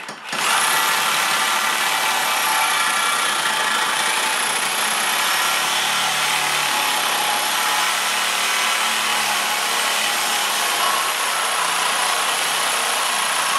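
Corded reciprocating saw cutting through a 1 1/2-inch metal antenna mast pipe. The blade runs steadily and without pause, with a thin high whine over the rasp of the cut, starting about half a second in.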